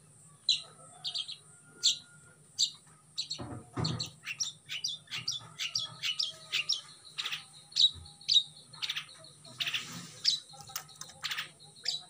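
Caged songbird chirping a long run of short, sharp notes, the calls coming thicker and faster from about four seconds in. A soft low bump sounds just before that.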